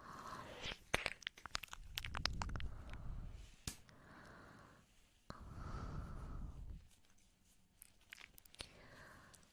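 ASMR mouth sounds made close to the microphone: rapid wet clicks and smacks in bursts, with slow breaths between them.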